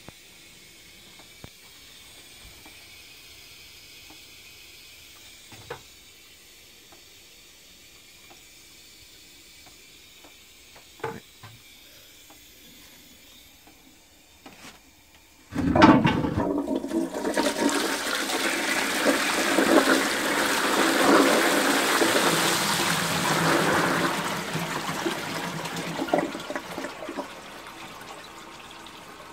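Victorian Shanks 'Reliable' cast iron cistern flushing. A few faint clicks are followed, about halfway through, by a sudden start and a rush of water into the pan that runs for about ten seconds and tails off near the end. The cistern flushes by a weight block pushing the water down into its standpipe, and its flush is sluggish, which the owner puts down to the short flush pipe.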